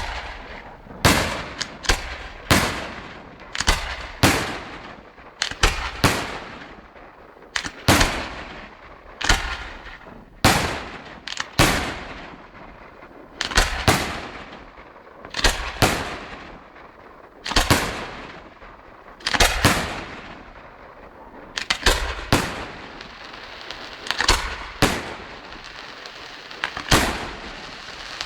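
Aerial fireworks display: shells bursting in a steady run of loud bangs, about one to two a second, each trailing off in an echoing rumble. Towards the end a steady sizzling crackle builds under the bangs.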